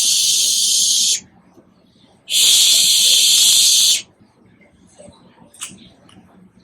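Two steady hissing sounds: one stops about a second in, the other starts a little after two seconds in and cuts off about four seconds in. A few faint light clicks follow.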